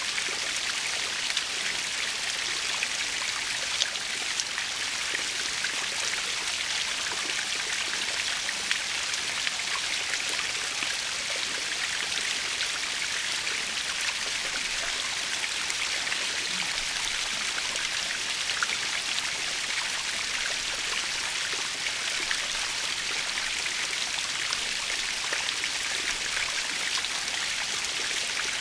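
Waterfall splashing steadily: a constant hissing wash of falling water with small droplet spatters scattered through it.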